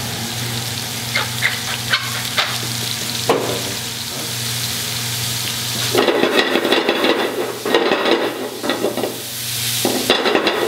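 Mushrooms and garlic sizzling as they sauté and brown in a stainless steel stockpot. About six seconds in, the pot is shaken and tossed, and the sizzle turns louder and choppier as the mushrooms slide about.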